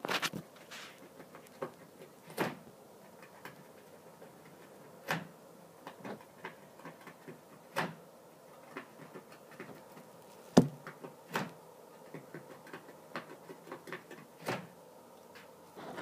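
Pet rabbit gnawing with its teeth: an irregular run of sharp clicks and cracks, with a few louder snaps among the faint ones.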